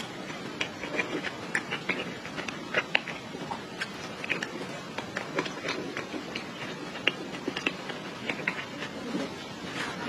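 Close-miked eating sounds: chewing with many irregular small clicks, crackles and mouth smacks.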